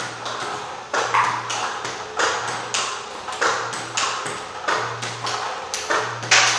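Table tennis ball struck by a bat and bouncing on the table in a steady forehand rally, a sharp pock about every half second to second, each with a short ring in a bare room.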